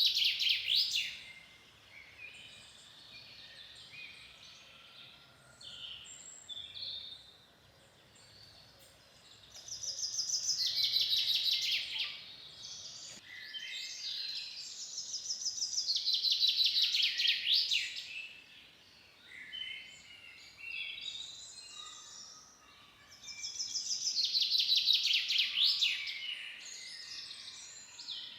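Birdsong in a forest: one songbird repeats the same song of rapid notes, falling in pitch and ending in a flourish, about three times. Fainter chirps from other birds fill the gaps.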